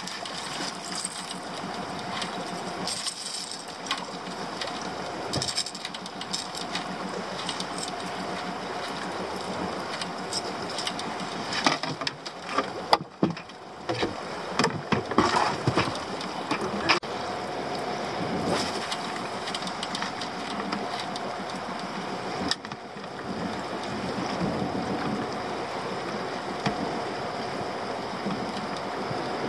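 A small boat's outboard motor running steadily under wind and water noise. A cluster of sharp knocks and clatters about twelve to seventeen seconds in, as things are handled in the boat.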